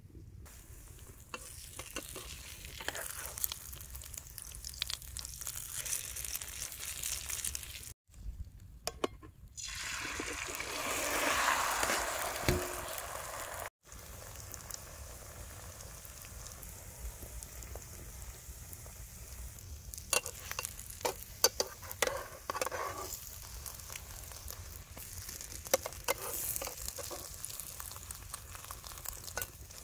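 Sausage and egg batter frying in a non-stick pan over a wood fire: a steady sizzle with scattered crackles and clicks, broken by two short gaps. The sizzle swells loudest for a few seconds near the middle.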